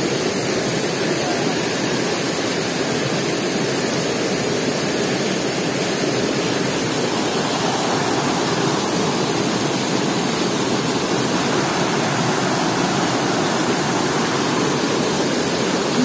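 Waterfall, a steady rush of falling water.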